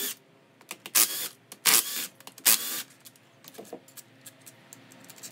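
A 12-volt cordless drill/driver running in three short bursts, backing out the cam retainer bolts on a cylinder head. After that come a few faint metallic clicks of the bolts being handled.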